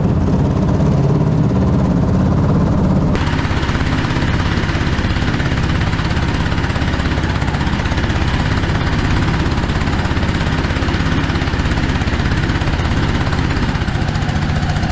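Single-cylinder 13 hp 420cc engine driving a homemade jet boat's impeller, running steadily under load, with the rush of the jet's water stream behind it. The motor is struggling, without enough power to get the boat on the plane.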